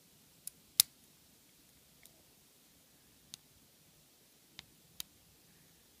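Sparse small metallic clicks of a lock pick working the pin tumblers inside a brass Keyosk 77/40 padlock under light tension, about six in all, the loudest about a second in. Right after, the picker thinks the second pin may have set.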